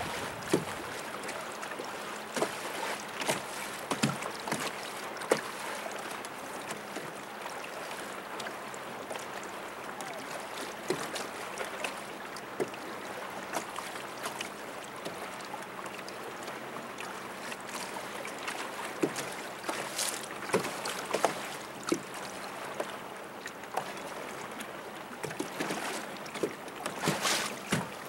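Water hissing and slapping along the hull of a moving boat: a steady wash with frequent, irregular small splashes.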